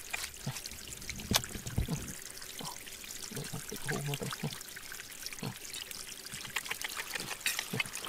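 Water pouring and trickling, with many small clicks and knocks.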